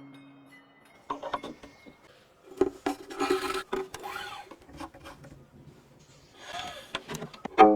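Workshop sounds of wood being rubbed or filed, with scattered light knocks. Near the end a single plucked string note rings out and dies away, its pitch sagging slightly.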